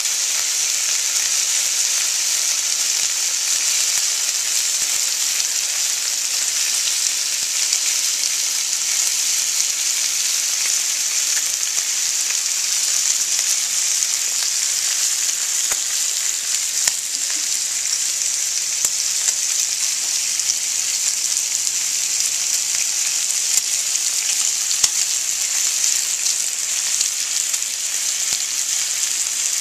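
Bacon strips frying in a hot pan: a steady sizzle with constant fine crackling and spitting of the fat.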